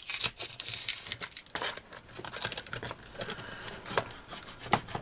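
A small craft knife cutting and sawing through polystyrene foam, making a run of small, irregular scratchy clicks and crackles.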